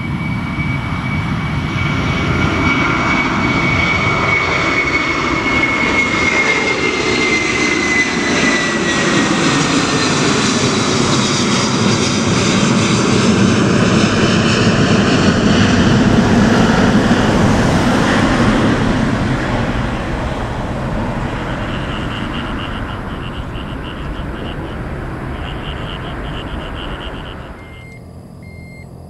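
Airbus A330-300 airliner taking off and climbing overhead at take-off thrust. Its engines grow to their loudest past the middle, with a high whine that falls in pitch as the plane passes, then fade away. Near the end the sound cuts abruptly to a much quieter scene with short repeated beeps.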